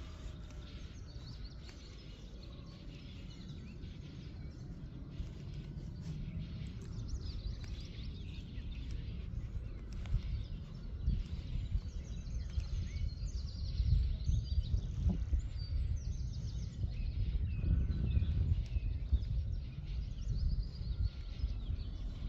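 Wind buffeting the microphone in uneven gusts, with small birds chirping faintly in the background.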